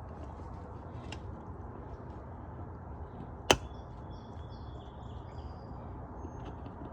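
Alaskan malamutes gnawing raw beef marrow bones: faint scattered clicks and crunches of teeth on bone, with one sharp loud knock about three and a half seconds in.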